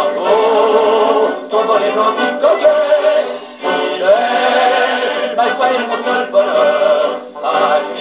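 A 1934 78 rpm shellac record of a French popular song playing on an HMV 102 wind-up portable gramophone. The music sounds thin, with no deep bass and no high treble.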